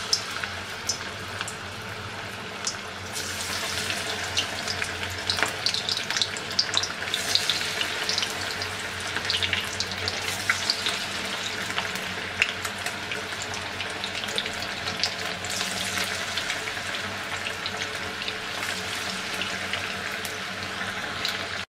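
Small whole-prawn pakoras deep-frying in hot oil in a karahi: a steady sizzle with many small crackles and pops, getting louder about three seconds in.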